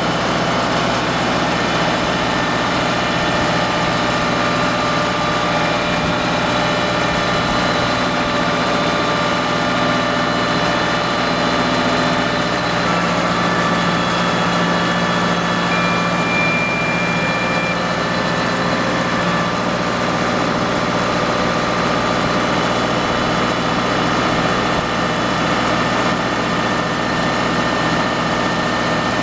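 Farm machinery engine running steadily at constant speed while baling hay, with a steady mechanical whine over it.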